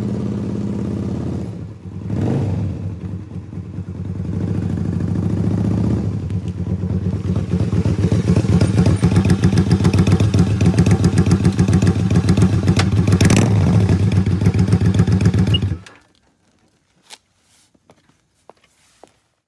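Honda Magna 250 V-twin engine running through an aftermarket Easy Riders exhaust, a steady pulsing exhaust note that grows louder from about six seconds in. The engine sound stops abruptly near the end, leaving a few faint clicks.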